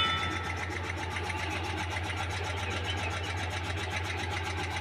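Truck tyre being inflated: air hissing through the hose chuck into the tube valve over the steady, quickly pulsing hum of an air compressor. A metallic ring fades out at the start.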